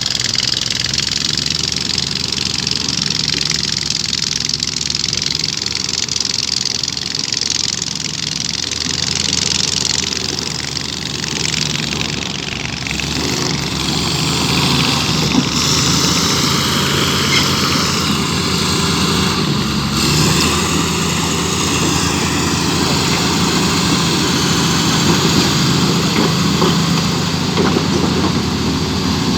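Large diesel engine running steadily at low speed.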